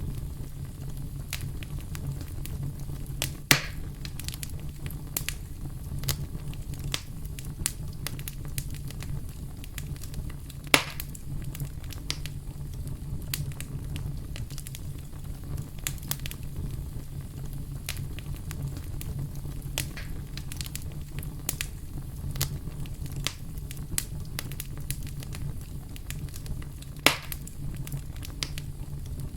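Wood fire crackling in a fireplace: frequent small pops and snaps over a steady low rumble, with three louder cracks, about three and a half seconds in, near eleven seconds, and near the end.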